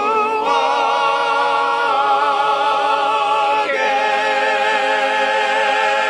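Men's chorus singing the long held final chords of a song, with the voices' vibrato clearly audible. The chord shifts about half a second in and again near four seconds.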